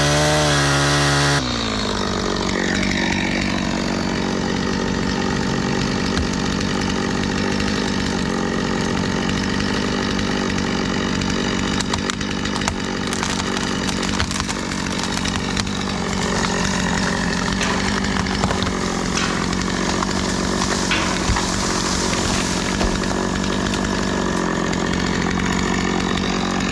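Stihl chainsaw revving up and down for about a second, then running steadily at high speed as it cuts into a tree trunk.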